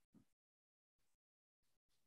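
Near silence: the gated audio of a video call, with only a few faint, brief scraps of noise.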